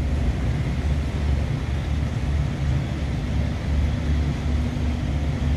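Low, steady engine rumble with a slight throb; a faint hum joins it about three seconds in.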